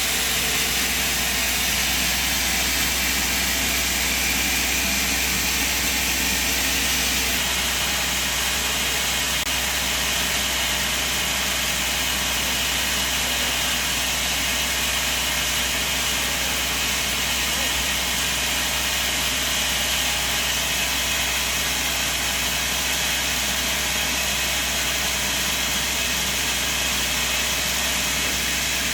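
Sawmill machine running steadily, a constant mechanical drone and hiss with no change in level.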